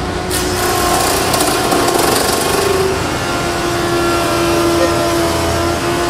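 16-inch jointer running, its cutterhead taking a pass across a wide walnut board. A steady machine whine, with the harsh rasp of the cut starting about a third of a second in and easing off around three seconds.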